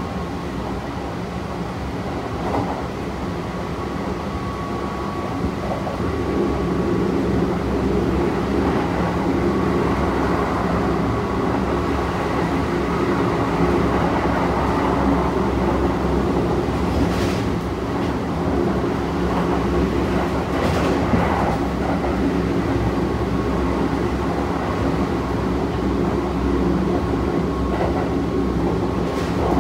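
Running sound inside a Kintetsu 1233 series electric railcar with VC43 VVVF inverter control. The wheels, traction motors and gears make a steady rumble and hum, with a thin steady high tone over it. It gets louder about six seconds in, and a few brief knocks come later on.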